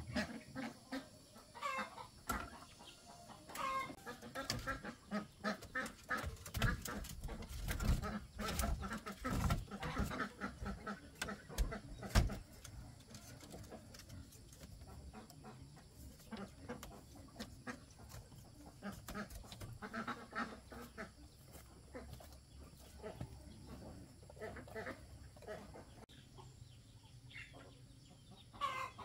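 Split bamboo strips clattering and knocking as they are woven by hand into a slatted wall, busiest in the first half, with chickens clucking throughout.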